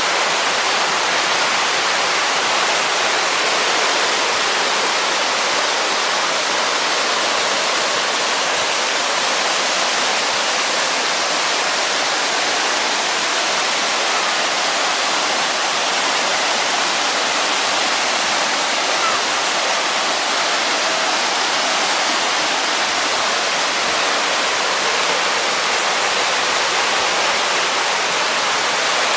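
Mountain stream cascading over rocks: a steady, loud rush of white water.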